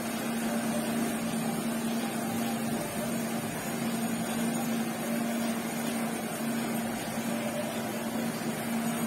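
Electric hair clipper running with a steady buzz while fading short hair.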